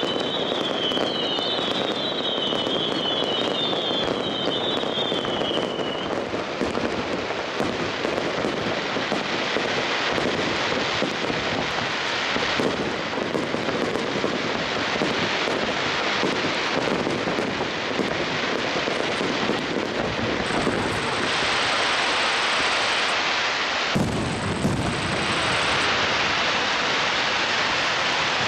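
Starmine fireworks barrage: a dense, continuous run of shell reports and crackling that echoes off the surrounding hills. A string of falling whistles from whistling fireworks runs through the first six seconds.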